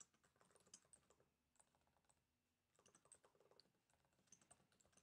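Faint typing on a laptop keyboard in three short bursts of rapid key clicks, otherwise near silence.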